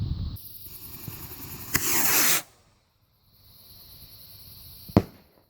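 Strobe Warfare firework rocket hissing, with a louder rushing whoosh for about half a second around two seconds in as it fires. A fainter hiss follows, then one sharp bang near the end.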